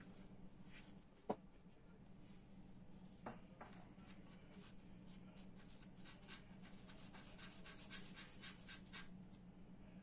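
Faint light scraping of a small steel palette knife stirring two-part epoxy on paper, a quick run of short scratches from about five to nine seconds in. A single sharp click about a second in is the loudest sound.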